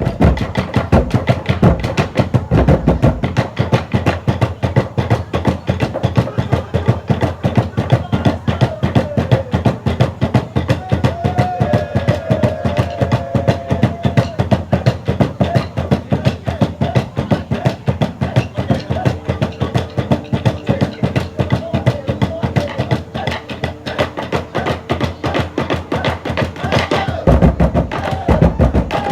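A drum beaten fast and steadily, about six strokes a second, in an even rhythm.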